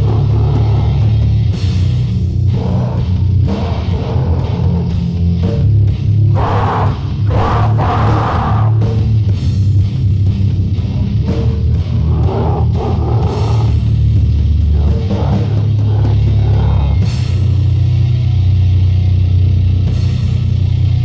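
Lo-fi extreme metal demo recording: heavily distorted guitar and drums with a heavy low end, and intermittent growled vocals.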